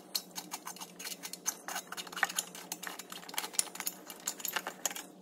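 Quick, irregular light clicks and scrapes of metal threads as a loosened NOx sensor is wound out of its threaded boss in a diesel exhaust pipe by hand, its wire rubbing as it is turned with it.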